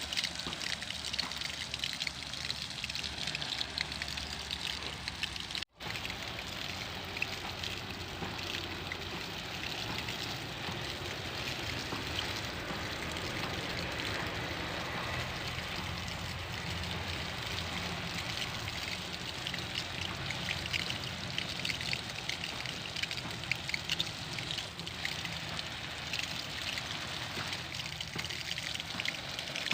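Water spraying and pattering from a homemade sprinkler, a steady trickling hiss that breaks off for an instant about six seconds in.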